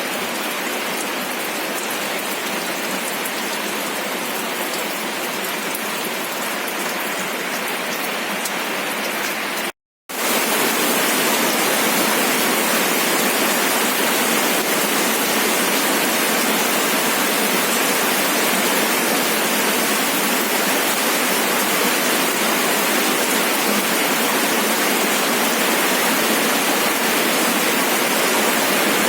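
Steady rain with individual drops ticking through the patter. About ten seconds in it cuts out for a split second, then comes back as a louder, denser, even rush of heavy rain.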